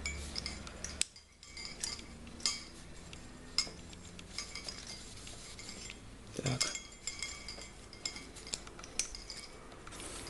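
Small metallic clicks and ticks with rubbing as a CPU cooler's finned metal heatsink is handled and its base is wiped clean of old thermal paste with a cloth. There is a louder cluster of clicks about two-thirds of the way through.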